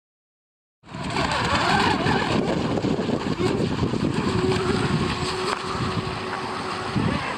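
Radio-controlled model boat's motor running, a dense, steady mechanical noise with a faint held tone. It cuts in abruptly about a second in, after silence.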